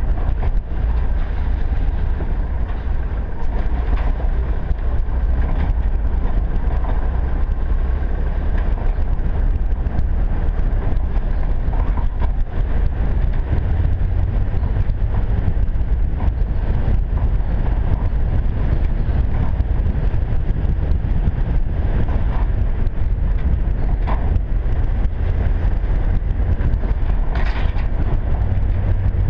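A vehicle's engine and tyres make a steady low rumble while driving on a rough, broken road, heard from a camera on the bonnet. Short knocks and rattles come from bumps, with one louder knock near the end.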